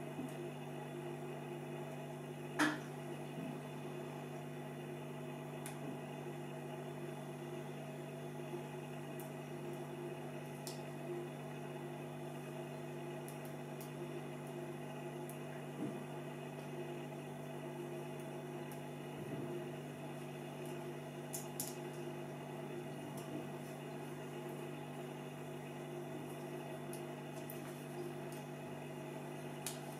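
Small clicks and taps of a screwdriver and fingers on the metal chassis of a cassette deck mechanism, with one sharper click about two and a half seconds in, over a steady low electrical hum.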